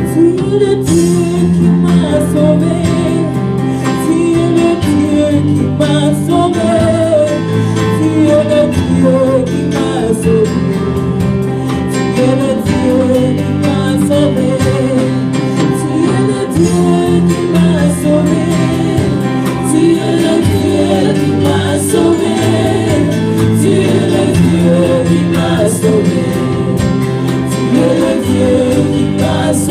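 Live gospel worship music: singers carry a wavering melody over long held keyboard chords, with electric guitar accompaniment.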